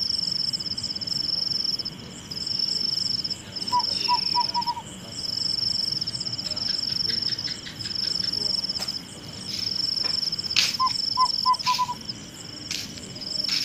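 Crickets trilling in high, pulsing phrases of a second or two with short breaks between them. Twice a quick run of about five short chirps from another small animal cuts in, and a few sharp clicks come near the end.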